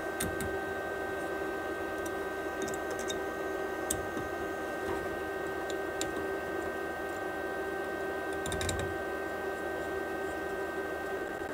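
Scattered small clicks and taps of a screwdriver and screws against an anodized aluminium heat sink as it is screwed onto the 3D printer's extruder motor mount, a few in quick clusters. A steady hum runs underneath.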